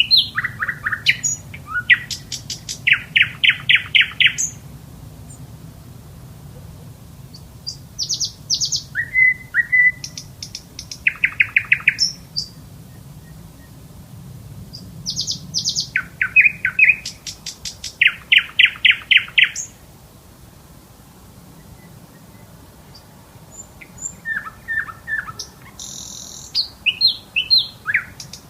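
A bird singing in short, rapid trills of repeated notes, phrase after phrase with brief pauses between, over a faint low steady hum.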